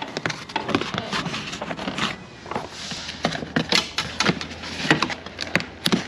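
Insulation sheet being peeled off a car's inner door panel, pulling away from its sticky adhesive with irregular crackling and popping.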